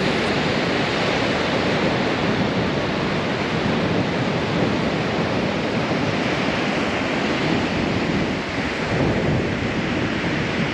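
Ocean surf breaking and washing up a sandy beach, a steady rush of waves, with wind on the microphone.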